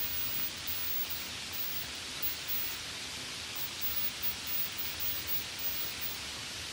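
Steady light rain: an even hiss, strongest in the upper range, with no separate drops standing out.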